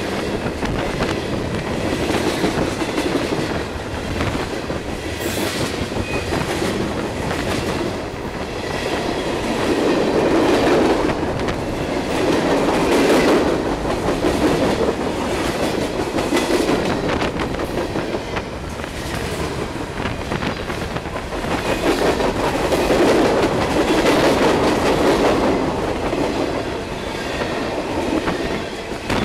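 Freight train's tank cars and covered hoppers rolling past close by: a steady rumble of steel wheels on rail with faint clicks, swelling twice.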